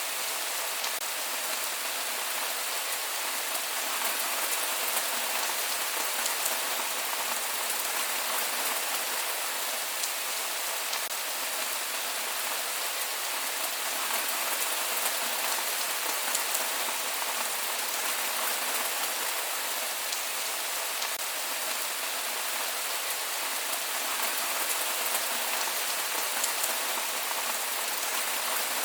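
Steady rain falling on surfaces, a continuous even hiss with scattered drop ticks and no thunder.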